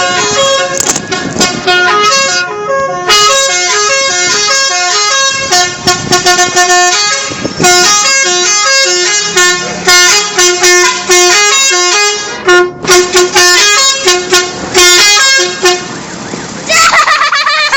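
Telolet bus horn playing a fast tune of stepped musical notes, the multi-tone horn of an Indonesian intercity bus. Voices call out about a second before the end.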